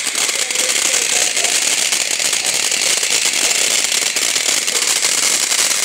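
Firework crackling and fizzing steadily, a dense, continuous patter of tiny crackles with no single big bang.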